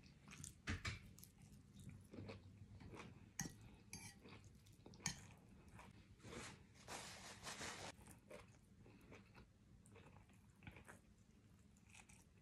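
A person chewing sautéed Brussels sprouts close to the microphone: faint, soft crunches and mouth clicks, with a denser stretch of crunchy chewing about halfway through.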